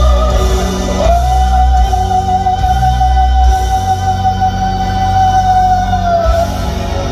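Background music: a long held high melody note over a steady bass, the note sliding down near the end.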